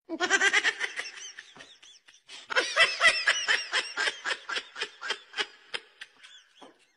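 A person laughing in quick, high-pitched bursts: two long runs of laughter with a short break about two seconds in.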